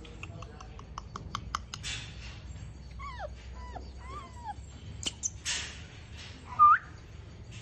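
Rottweiler puppies whimpering in several short, falling whines, with one louder, higher whine near the end. A quick run of clicks comes about a second in.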